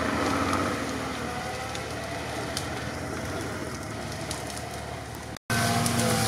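Lada Niva's engine running as the off-roader crawls through dry grass and brush, with twigs crackling against it. The sound drops out for a moment about five seconds in and comes back louder.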